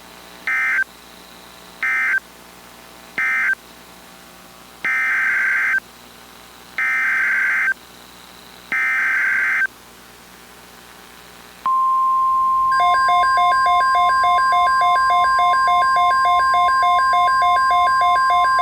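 Emergency Alert System SAME data bursts on NOAA Weather Radio: three short warbling digital bursts that mark the end of the tornado warning, then three longer header bursts that open the next message. About twelve seconds in, the steady 1050 Hz NOAA warning alarm tone comes on, joined a second later by a fast pulsing beep.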